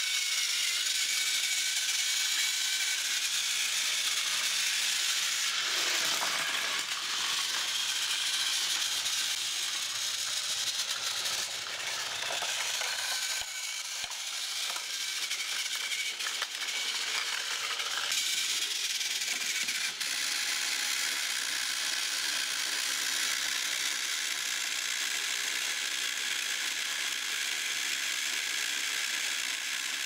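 Battery-powered TrackMaster Hiro toy engine running on plastic track: its small motor and gearbox whirring and clattering steadily.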